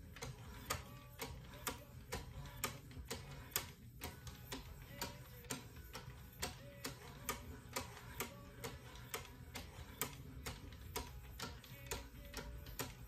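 Wicked Edge guided sharpening system in use: hand-held stones stroked alternately down each side of a clamped folding-knife blade. Each stroke gives a sharp click, about two a second in a steady rhythm.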